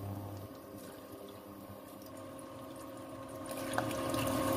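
Potato-and-cheese sticks deep-frying in hot oil, a steady sizzling and bubbling with small crackles that grows louder about three and a half seconds in.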